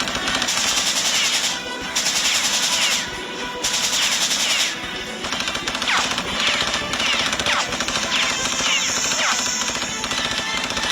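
Three bursts of rapid automatic gunfire in the first five seconds, over background music. Later, several short falling whistling sweeps.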